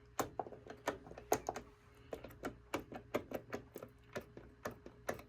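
Worn pinball flipper mechanism being worked by hand, its loose linkage clicking and clacking irregularly about three times a second; the rattle is the slop of shot, badly worn flippers.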